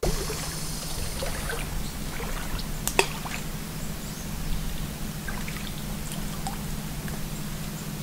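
Small splashes, trickles and drips of lake water as hands work in the shallows at the shoreline, with one sharp knock about three seconds in, over a steady low hum.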